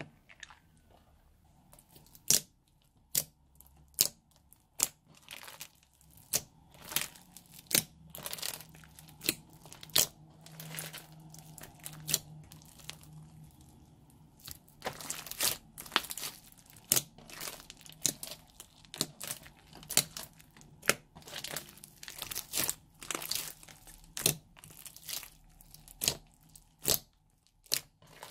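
Thick white slime studded with small red beads being stretched and pressed by hand, giving sharp pops and crackles about one or two a second, more frequent in the second half.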